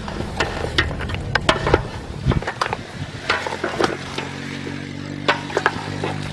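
Meat sizzling in a large aluminium pot over a wood fire while a spoon stirs it, with repeated sharp scrapes and knocks against the pot. A steady low hum comes in about four seconds in and carries on.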